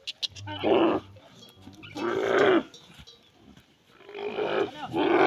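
Dromedary camels calling during mating as a bull mounts a couched female: a series of loud, harsh calls, about four, each lasting half a second to a second or more, the last running on.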